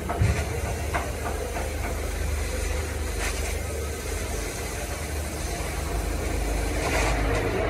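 Gas cutting torch hissing steadily as it burns through the steel arch of an old truck body, over a steady low rumble. A knock sounds just after the start.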